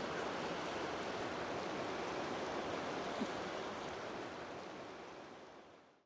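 Tuolumne River flowing steadily over a shallow, rocky riffle, a continuous rush of water that fades out over the last two seconds.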